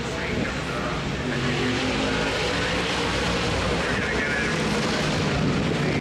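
Steady engine drone, with a low hum that shifts slightly in pitch over a wash of general noise.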